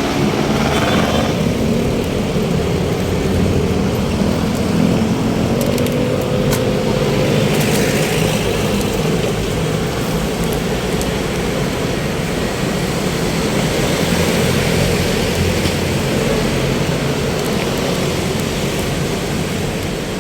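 Road traffic with a vehicle engine running close by: a steady engine hum under traffic noise, with a few light clicks.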